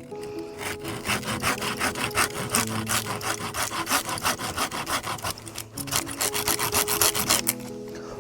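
Rapid, even rasping strokes, about five a second, with a short break about six seconds in, like something rubbing or scraping back and forth on wood.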